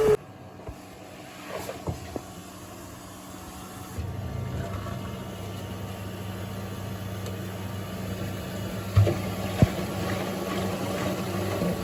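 Toshiba drum washing machine running with a steady low rumbling hum that sets in about four seconds in, with a couple of sharp knocks near the end. It is an abnormal noise of the kind the repairer says may be a precursor to Toshiba's EP3 error, a fault around the drain pump.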